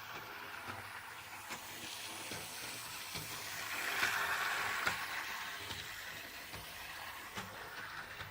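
Jouef model locomotive running on the track: a steady hissing whir of its motor and wheels with scattered faint clicks, swelling louder about halfway through.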